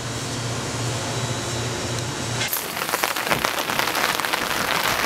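Steady low hum of kitchen equipment. About halfway through it cuts suddenly to a dense, crackling patter of rain.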